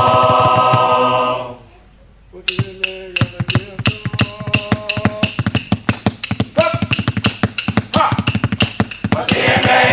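Samoan chiefs' choir singing a cappella with sharp rhythmic claps. A held chord breaks off about a second and a half in; after a short pause the claps resume under a single thin vocal line, and the full choir comes back in near the end.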